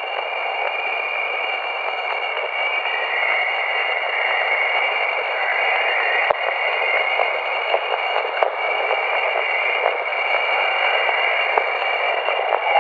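Radio-like static: a steady hiss with a few high, held whistling tones and scattered faint crackles.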